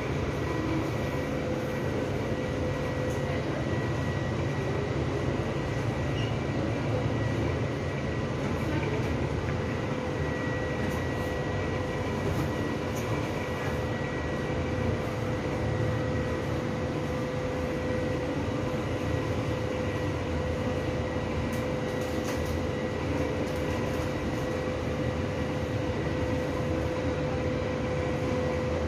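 Steady machine hum: an even rush with a constant tone held over it.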